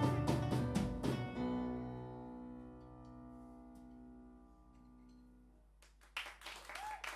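Live band of electric guitars, bass, keyboard and drums playing the final bars of a song, ending on a held chord that rings out and fades over several seconds. Near the end the audience breaks into clapping and cheering.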